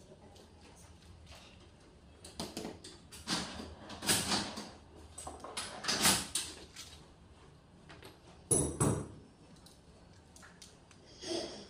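Plastic and metal parts of a Karcher K2 Power VPS pressure washer's pump assembly being handled during disassembly: irregular clatter, scraping and knocks, with the loudest clunks about four, six and nine seconds in.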